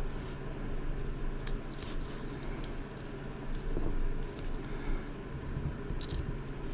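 A few light clicks of small metal mount parts being handled and tightened by hand, over a steady low hum.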